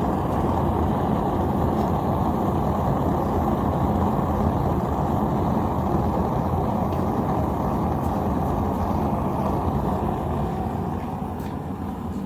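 A steady low rumbling noise that eases off slightly near the end, with a few faint ticks.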